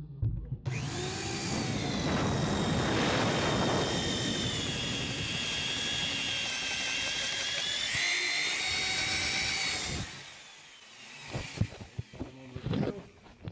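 Power drill with a long auger bit boring through a wooden wall stud: the motor runs steadily under load with a whine for about nine seconds, its pitch changing about eight seconds in, then stops. A few light knocks follow near the end.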